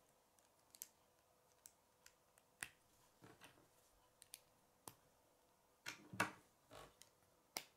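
Plastic K'nex rods and connectors clicking and snapping together as pieces are fitted by hand: scattered sharp clicks, with a louder cluster about six seconds in and another click near the end.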